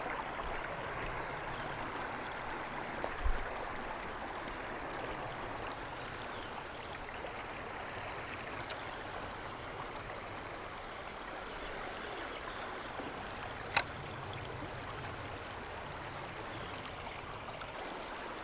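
Steady rush of flowing river water. A short low thump about three seconds in, and two sharp clicks, a faint one about nine seconds in and a louder one about fourteen seconds in.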